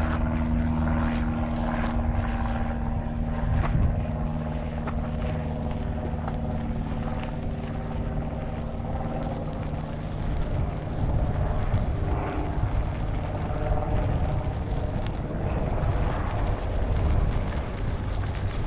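Propeller aircraft engine droning steadily, strongest in the first few seconds and then fading, over a low rumble of wind on the microphone.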